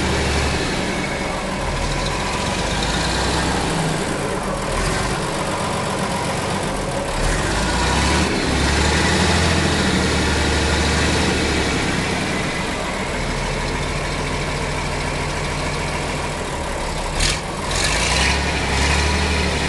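Fiat 691 truck's diesel engine idling steadily, heard close to its exhaust pipe, with one short sharp noise near the end.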